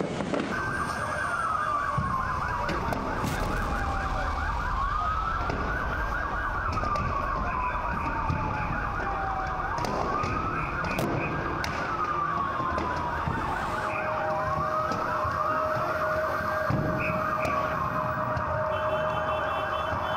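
Emergency vehicle siren wailing in slow cycles, each a quick rise and a long slow fall, over a constant noisy background. About two-thirds of the way in, a second siren overlaps and a steady held tone joins underneath.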